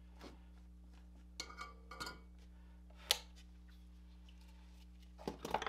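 Scattered small clicks and clinks of tools and wire being handled on a workbench during a soldering job, a few single taps and a sharper click about three seconds in, then a quick cluster of clatter near the end, over a steady low electrical hum.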